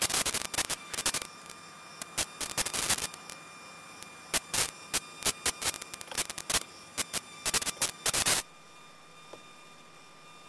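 Irregular clusters of sharp crackling static in a camera's audio, going for about eight seconds and stopping abruptly, leaving a steady hiss with a faint high hum. The uploader takes it for electromagnetic interference with the camera.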